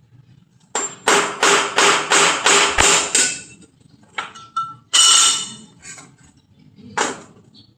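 Hammer blows on metal: a quick run of about eight strikes at roughly three a second, each with a short metallic ring, then a few single blows spaced apart.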